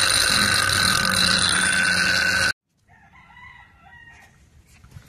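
Vintage homemade bench grinder grinding the rusty hatchet blade: a loud steady high-pitched whine with hiss that stops abruptly about two and a half seconds in. Afterward, faint chicken calls.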